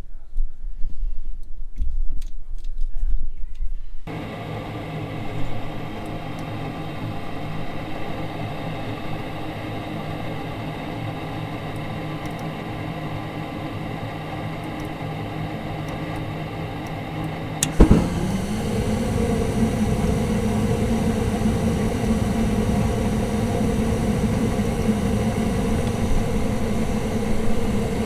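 Goodman gas furnace starting a heating cycle: after some clicking, the draft inducer motor starts about four seconds in with a steady hum. Near the end the burners light with a sudden thump, and a louder steady burner rush then runs with the inducer.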